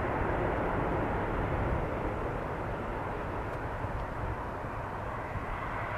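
Jet engines of an Air France Boeing 777-300 running as it moves along the runway, heard as a steady rumble and roar. The sound eases off a little about two seconds in.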